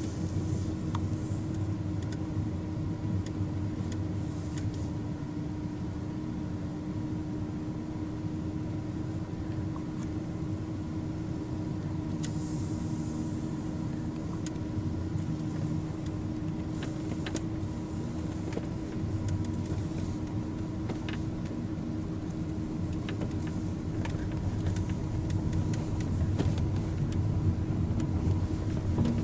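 A car's engine and road noise, a steady low rumble with a faint steady hum, with a few faint clicks. It grows a little louder over the last few seconds.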